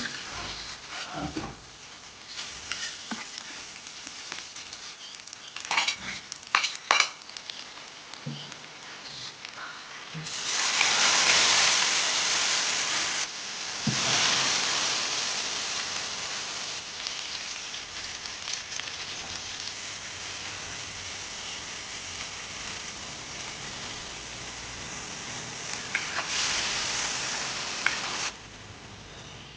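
A few sharp knocks of utensils on a pan. About ten seconds in, a loud sizzle breaks out suddenly as food hits hot oil, then settles into steady frying that swells again near the end and cuts off abruptly.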